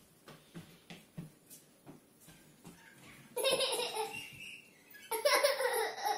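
A toddler laughing excitedly in two high-pitched bursts, the first about three and a half seconds in and the second near the end, with a few faint taps before them.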